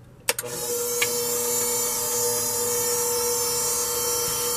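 KitchenAid electric hand mixer switched on with a click, its motor starting at once and then running at a steady whine while the twin beaters mix batter in a plastic bowl. A second short click comes about a second in.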